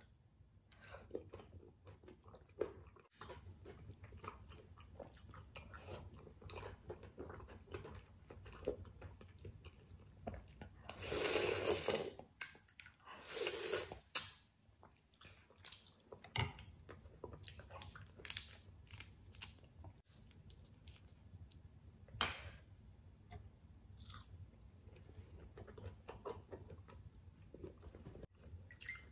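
Close-up mouth sounds of a person eating spicy seafood ramen: chewing and biting with many short wet clicks and smacks, and two louder slurps, each about a second long, near the middle.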